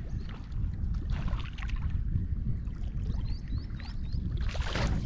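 Topwater bunny lure chugging and splashing across the lake surface over a steady low wind rumble on the microphone, then a louder splash about four and a half seconds in as a largemouth bass strikes the lure.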